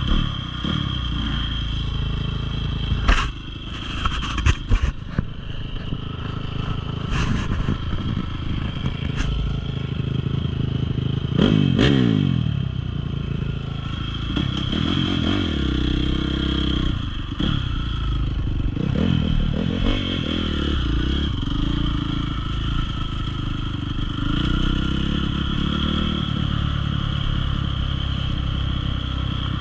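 Enduro dirt bike engine revving up and down over and over while riding an off-road trail, with sharp knocks and clatter, bunched a few seconds in and again about twelve seconds in.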